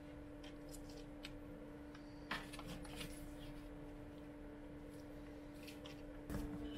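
Quiet food-handling sounds: soft clicks and taps as battered pieces are laid onto a tortilla on a plate with kitchen tongs, with a sharper tap about two seconds in and a thump near the end. A steady low hum runs underneath.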